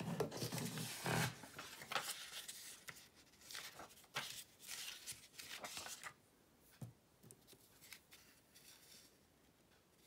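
Paper and cardstock being handled and slid on a craft mat: a run of rustling and scraping strokes, loudest in the first second or so, thinning out after about six seconds to a few light taps.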